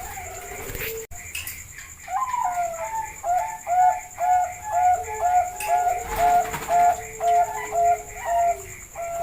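Zebra doves (perkutut) cooing. A drawn-out rising-and-falling coo about two seconds in is followed by a long, even run of short coos, about two or three a second, with a lower coo held beneath them.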